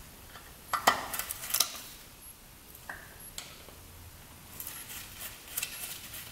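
Light metallic clicks and clinks of a carburetor being worked loose by hand from its rubber boots and hose clamps on a 1980 Suzuki RM125, in two clusters, about a second in and again near the end.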